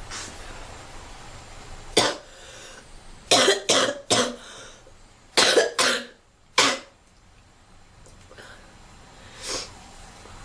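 A girl coughing while smoking, in a fit of about eight short, sharp coughs: one, then two quick clusters of three, and a last fainter cough near the end.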